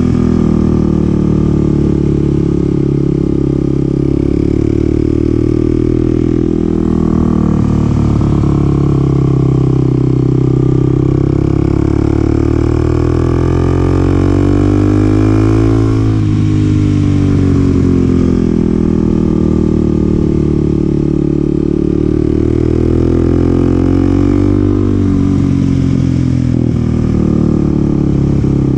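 Kawasaki KLX300SM's single-cylinder engine running under way, its revs falling off about halfway through and then climbing again through the bends, over steady wind rush.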